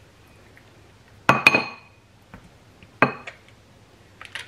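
A hand-held lime squeezer clinking against a glass bowl while limes are squeezed: a quick double clink with a brief ring of the glass about a second in, another clink near three seconds, and a few small ticks near the end.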